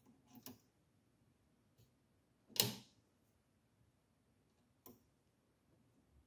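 A few small clicks and one louder tap from a hand tool working the two screws that hold the hot end on an Ender 3 Pro 3D printer. The tap comes about two and a half seconds in; the rest is faint.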